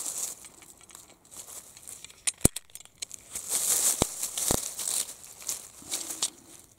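Dry leaf litter rustling and crackling as a hand moves cut mushroom pieces about on the forest floor, with three sharp clicks in the middle.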